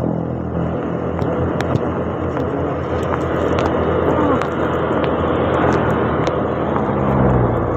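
Motorcycle being ridden in the rain: steady engine, wind and wet-road noise, with scattered sharp ticks throughout.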